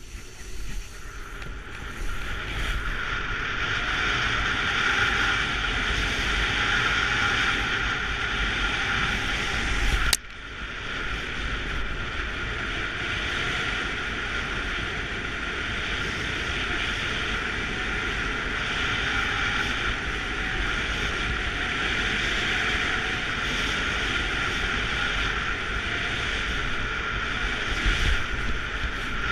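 Steady rush of wind buffeting the microphone during a fast speedriding descent, mixed with skis running over snow. A sharp click about ten seconds in, after which the rush is a little quieter.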